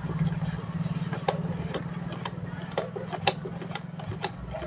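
A steady low motor hum runs under a series of sharp clicks and taps, about eight of them, spaced unevenly and starting about a second in.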